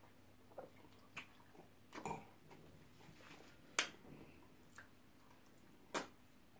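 Faint wet mouth smacks and clicks of people eating pounded yam with slimy ogbono soup by hand: a handful of short sharp ones spread out, the loudest just under four seconds in.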